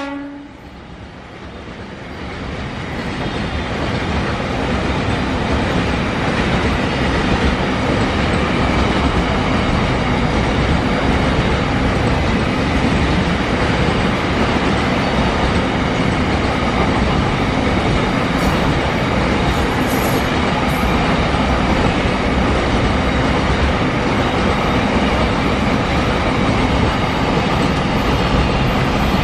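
Loaded BLC container wagons of a freight train rolling past at speed: steady, loud wheel-on-rail noise that builds over the first few seconds and then holds. The locomotive's horn cuts off just after the start.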